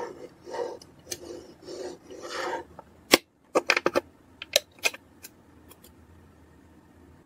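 Plastic rubbing and scraping as a toy ATM money box is handled. About three seconds in there is a sharp click, followed by a string of clicks as AA batteries are pressed into its battery compartment.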